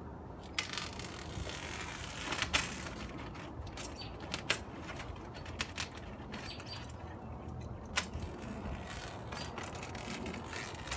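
Synthetic house wrap rustling and crinkling as it is handled and trimmed around a window opening, with a few separate sharp clicks scattered through.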